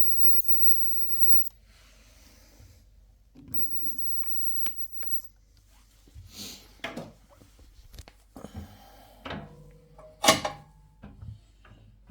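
A newly lit wood fire catching while wood is handled: a brief hiss at the start, then scattered crackles, rubbing and knocks, with one sharp knock about ten seconds in.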